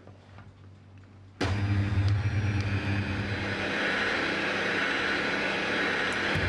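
Electric hand mixer switched on about a second and a half in, then running steadily as its twin wire beaters whip egg whites and sugar in a glass bowl into meringue.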